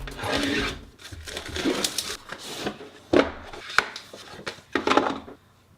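Objects handled close to the microphone: rustling and scraping with a few sharp knocks around the middle.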